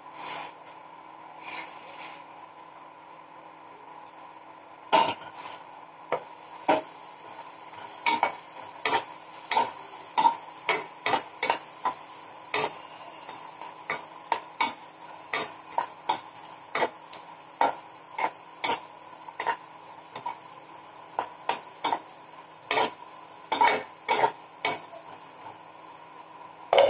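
Perforated steel spatula stirring and tossing chopped vegetables in a nonstick frying pan, clicking and scraping against the pan about once or twice a second from about five seconds in, over a steady background hiss. A couple of knocks come in the first two seconds.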